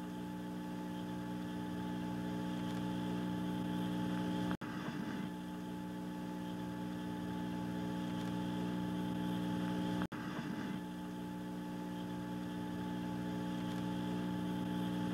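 A steady droning hum made of several held tones, cutting out for an instant twice, about four and a half and ten seconds in, each time coming back with a brief rough patch.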